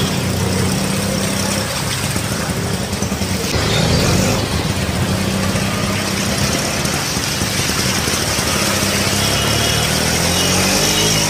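Engine of a vehicle running as it drives through a flooded street, under a steady hiss of heavy rain and rushing water, with a brief louder surge about four seconds in.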